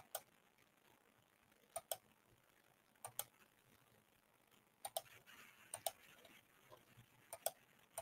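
Computer mouse clicking: about six pairs of sharp clicks, spaced unevenly one to two seconds apart, over near silence.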